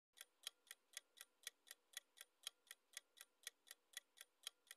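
Quiz countdown-timer ticking sound effect: faint, evenly spaced clock ticks, about four a second.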